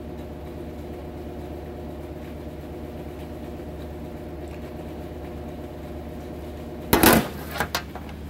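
A steady machine hum made of several low steady tones. About seven seconds in comes a sudden loud noise lasting under half a second, then a few softer knocks.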